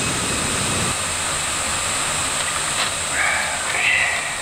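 Plastic fizzy-drink bottle's screw cap twisted open, with a short hiss of escaping carbonation a little after three seconds in, over a steady high background hiss.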